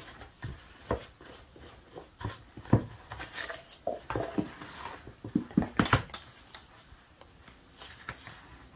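A measuring cup scooping flour from a plastic tub and being levelled off with a spatula: irregular knocks, scrapes and clicks of kitchenware, with a cluster of sharper knocks about six seconds in.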